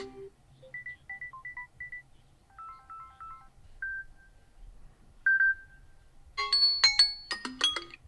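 Samsung Galaxy A54 5G default ringtones previewed one after another: short electronic melodies of quick high notes with pauses between them. Near the end a louder, denser tune starts.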